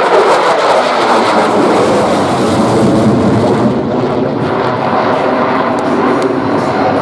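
Fighter jet engine noise from an aircraft flying overhead, loud and steady; a little past halfway the highest hiss drops away and the sound turns duller.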